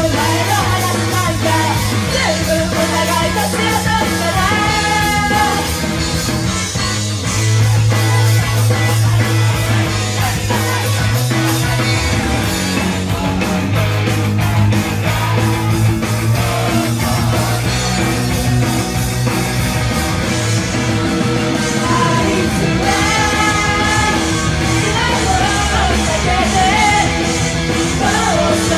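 Idol group's rock-style pop song performed live, with female vocals sung into microphones over loud, driving band music with a strong bass line and steady drum beat.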